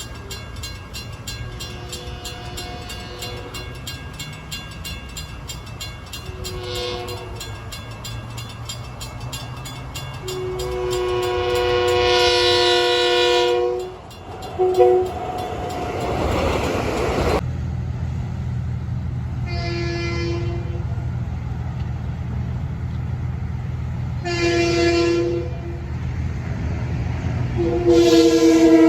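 Locomotive air horn sounding a series of blasts over the steady rumble of a train: a few short blasts, one long blast about halfway through followed by a short one, then three more short blasts toward the end. A rush of noise follows the long blast.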